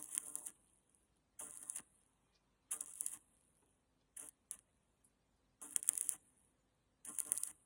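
Metal parts clinking and rattling in short bursts of about half a second, six times at a steady pace of roughly one every second and a half.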